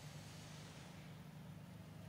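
Near silence: a faint, steady low hum with light hiss, and no distinct sound events.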